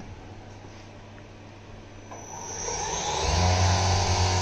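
Epoxy granite CNC vertical mill starting up: about two seconds in, a hiss of flood coolant spraying inside the enclosure builds, and about a second later a steady machine hum cuts in and holds.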